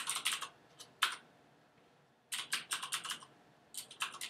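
Typing on a computer keyboard: quick runs of keystrokes, a lone keystroke about a second in, a pause of about a second, then two more runs.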